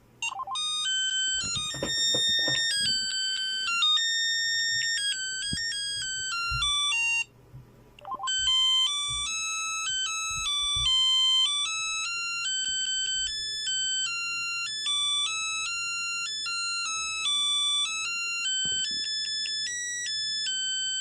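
Smartphone ringtone: a quick, bright synthesized melody of clear stepping notes. It breaks off for about a second, seven seconds in, then repeats.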